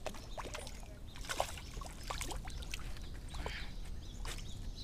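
Water splashing and dripping in irregular bursts, over a low steady rumble.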